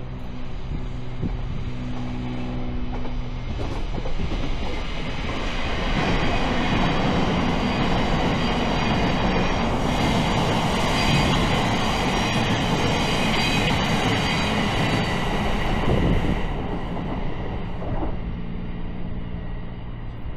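Class 700 Desiro City electric multiple unit passing close by: a rush of wheels and air builds up, holds for about ten seconds with a high whine over it, then fades as the train goes away.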